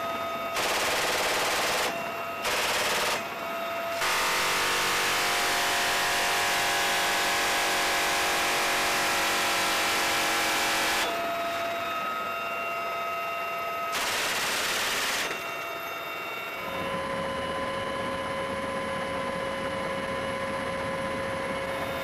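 Door-mounted GAU-21 .50 calibre machine gun firing from a UH-1Y helicopter's cabin, in several bursts: two short ones, then one of about seven seconds, then another short one. After the last burst the helicopter's steady engine and rotor whine carries on.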